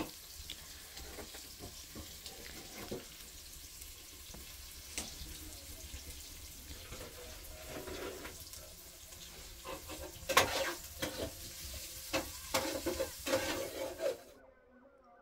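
A steady hissing noise with scattered crackles and clicks, growing busier near the end and cutting off abruptly about 14 seconds in.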